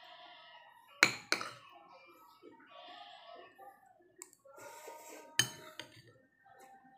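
Metal spoon clinking against a plate while eating: two sharp clinks about a second in and two more around five and a half seconds.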